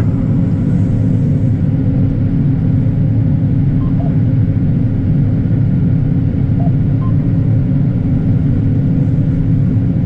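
John Deere S660 combine running at full engine speed with its separator and corn head engaged, a steady low rumble heard from inside the cab.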